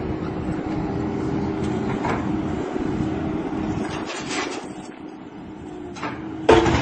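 Compact track loader engine running steadily, easing off about four seconds in, then a sudden loud noise near the end.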